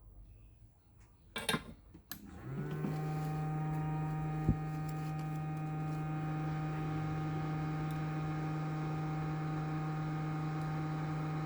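A couple of clicks, then a hot air rework station's blower comes on about two seconds in, rising briefly in pitch and settling into a steady hum, with a sharp click a couple of seconds later.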